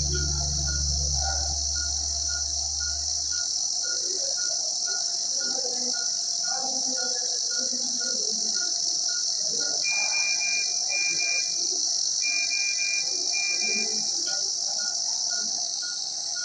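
Bedside patient monitor beeping about twice a second, with a higher alarm tone sounding in short repeated pulses from about ten seconds in, over a steady loud hiss. A low hum fades out about three seconds in.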